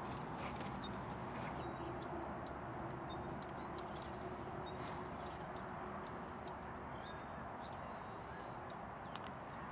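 Steady outdoor background noise with scattered faint clicks and a few short, high bird chirps.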